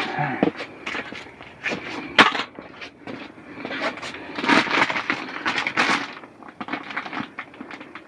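Clear plastic wrapping on a vacuum-packed memory foam mattress crinkling and rustling in irregular bursts as it is handled and pulled open, with one sharp snap about two seconds in.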